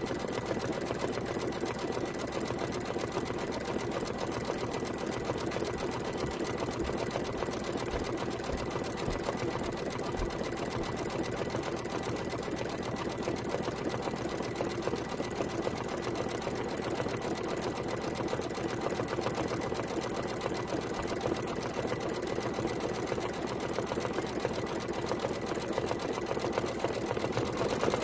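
Computerized embroidery machine running steadily, its needle stitching rapidly around the edge of a fabric appliqué, growing a little louder near the end.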